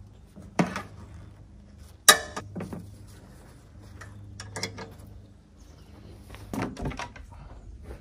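Knocks and clunks as a plastic water jug is handled and set in place on a band sawmill's saw head. The sharpest knock comes about two seconds in, with a few more near the end.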